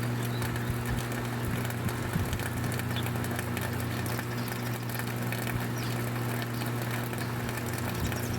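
Steady rain with many fine drop ticks, over a constant low hum.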